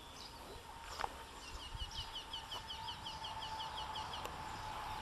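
Songbirds singing: one bird gives a run of about a dozen quick, evenly repeated notes lasting a couple of seconds, among other chirps.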